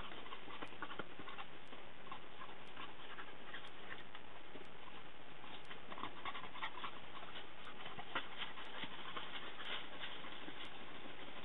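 Dogs panting and sniffing through grass, with small irregular rustles and clicks over a steady hiss.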